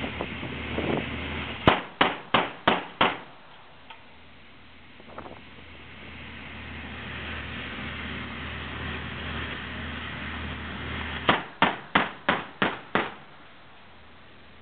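Ship's deck-mounted heavy gun firing two quick strings of shots, five and then six, about three a second, over steady wind and ship noise.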